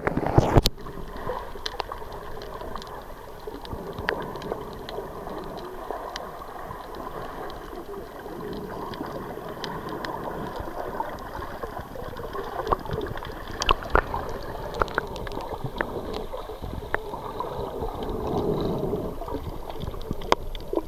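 A loud splash as the camera goes under the water, then the muffled sound of being underwater: a steady wash with bubbling and many scattered short clicks and pops.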